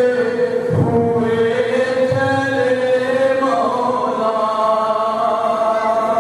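A man's voice chanting a noha (Shia lament) through a microphone in long, drawn-out notes, with a few dull thumps of chest-beating (matam) underneath.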